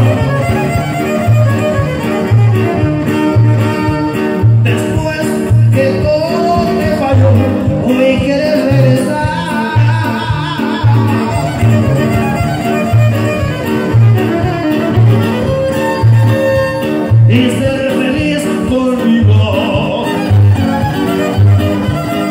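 Live Mexican trio dance music: a violin carries a wandering melody over strummed strings and a steady low bass beat of about one a second.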